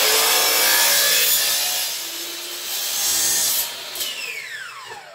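Hitachi compound miter saw cutting through a thin strip of SmartCore vinyl flooring, its blade already at full speed. About four seconds in the trigger is released and the blade winds down with a falling whine.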